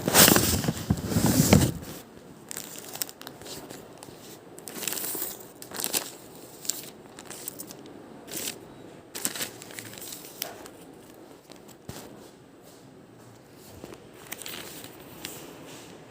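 Packaging being handled and opened: crinkling and tearing, loudest in the first two seconds, then scattered short crinkles and small clicks.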